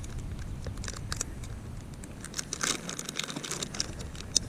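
Irregular crinkling and crackling of a plastic soft-bait bag being handled close up, with many small sharp clicks scattered through it.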